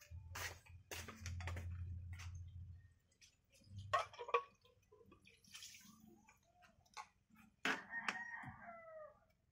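Broth poured from a can into a pan of vegetable fern tops over a wood fire, splashing about four seconds in, with clinks of a spoon stirring against the metal pan. A rooster crows near the end, and a low rumble runs through the first three seconds.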